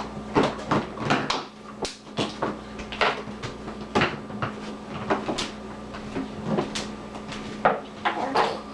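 Irregular clatter of tableware at a meal: sharp knocks and taps in quick succession, a couple of dozen in all, over a steady low hum.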